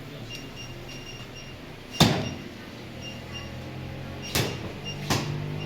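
Three sharp knocks or bangs over a low steady hum, the first about two seconds in and the loudest, with faint short high pips repeating in the background.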